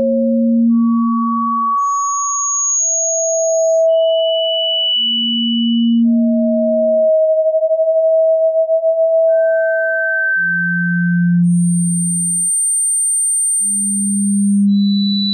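Electronically generated pure sine tones for tinnitus sound therapy, changing pitch every second or two. Usually two overlap: a low hum under a higher tone that jumps between middle and very high, piercing pitches. Midway, two tones close in pitch beat against each other, giving a fast wavering.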